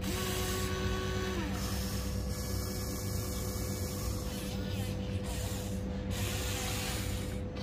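Huina 1594 RC excavator's electric motors and gears whirring steadily as the arm and bucket move. A higher whine sounds for about the first second and a half, then cuts out.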